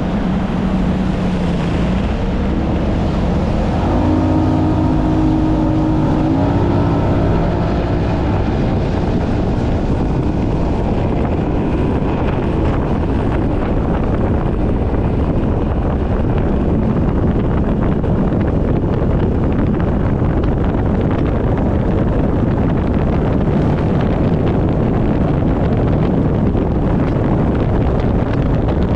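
Speedboat's two-stroke outboard engine running under throttle, its pitch climbing in steps over the first several seconds. Loud, steady wind noise on the microphone and water rush take over as the boat runs at speed.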